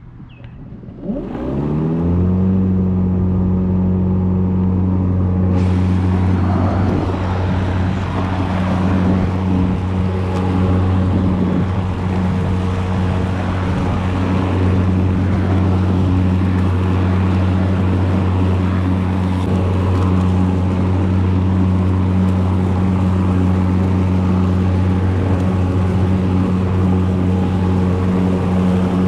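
Ryobi 40V brushless cordless lawn mower's electric motor and blade spinning up with a rising whine, then running at a steady hum. About five seconds in, a loud rushing noise joins it and keeps going as the mower works across the lawn.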